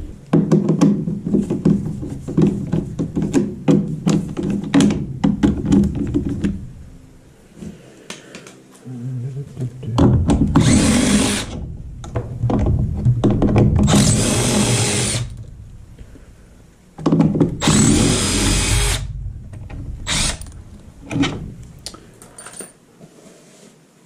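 Cordless power driver running in three bursts of a second or two, about ten, fourteen and eighteen seconds in, removing screws from a gas furnace's draft inducer assembly so a plugged part can come off for cleaning. Before the bursts, parts are handled with clicking and rattling.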